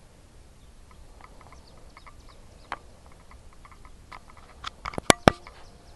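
Faint short chirping calls repeating in small groups, with a few sharp clicks; about five seconds in, two loud sharp clicks come close together, about a fifth of a second apart.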